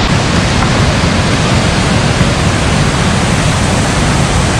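Loud, steady rush of a big whitewater rapid pouring over granite close by.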